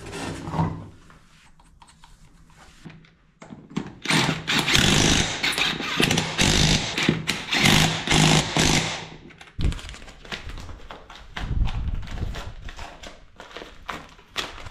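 Cordless impact wrench hammering the wheel nuts onto an ATV wheel. One long rattling run of about five seconds starts about four seconds in, and shorter bursts follow in the second half.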